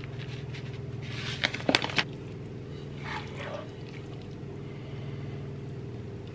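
Kitchen handling sounds as grated cheese is shaken from a plastic packet onto pasta in a glass baking dish and a utensil turns the pasta. There is a short cluster of sharp clicks about a second and a half in, over a steady low hum.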